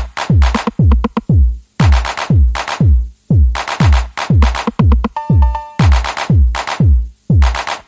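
Electronic dance music with a deep kick drum that falls in pitch, about two beats a second, and bright hits over it. A short synth chord sounds around five seconds in.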